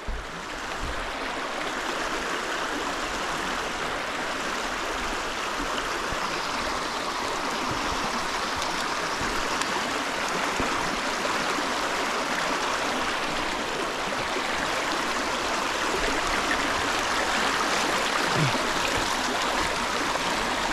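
Creek water flowing, a steady even rush of moving stream water.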